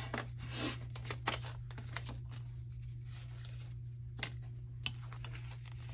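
Paper dollar bills rustling softly as they are handled and tucked away by hand, with a few light taps, over a steady low hum.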